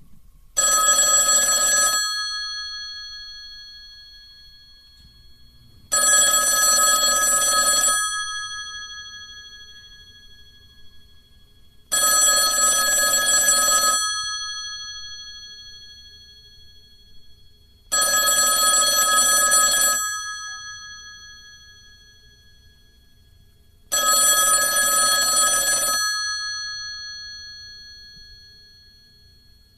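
Telephone bell ringing: five bursts of about a second and a half each, one every six seconds, each leaving a ringing tail that dies away in the gap before the next.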